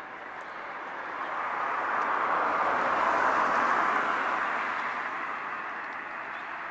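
A vehicle passing by: an even rushing noise that swells to a peak about three seconds in and then fades away.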